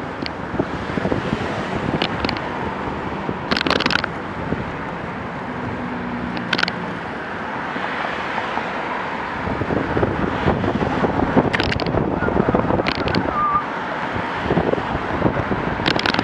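Road traffic passing on a busy multi-lane street, with wind buffeting the microphone and a few sharp knocks.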